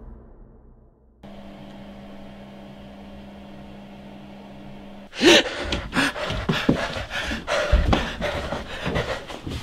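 A steady low hum, then, about five seconds in, a person breaking into loud, heavy gasping and panting.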